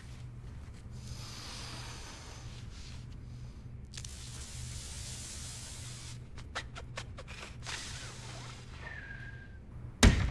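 Quiet room tone with a low steady hum and soft rustling of fabric, a few small clicks about two-thirds of the way through, then a sudden loud burst just before the end.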